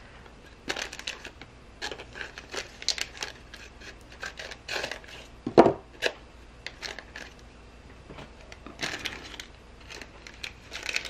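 Crinkly foil accessory pouch from a toy capsule being handled and squeezed: irregular crackling rustles, with one louder thump about five and a half seconds in.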